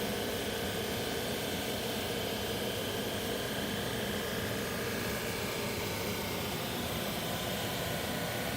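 Woodworking sander running steadily, a constant rushing noise with a faint steady whine and no change in load.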